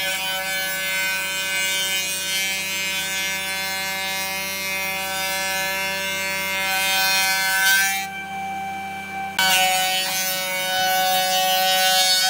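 Bench-mounted electric belt sander running with a steady whine while the edge of a wooden board is sanded against the belt, making a rough rasping hiss. The sanding stops for about a second and a half about eight seconds in, with only the motor whine left, then starts again.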